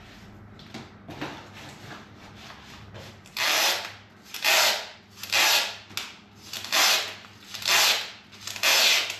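Masking tape being pulled off the roll in six loud strokes, roughly one a second, starting about three seconds in. Before that there is faint tapping and rubbing as tape is pressed onto the door panel.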